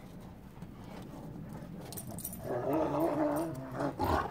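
Rottweiler vocalizing in rough play: after a quieter stretch, a drawn-out wavering growl-whine starts about halfway through, with a short second one near the end.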